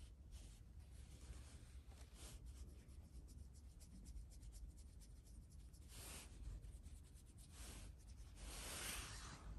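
Fingers scratching an Abyssinian cat's head and fur, a faint scratchy rubbing with many quick strokes, swelling louder about six seconds in and again near the end.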